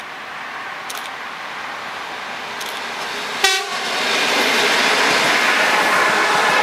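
ED4M electric multiple unit sounding a short horn toot about three seconds in. The noise of the approaching train then grows louder and stays loud to the end, with some wheel clatter.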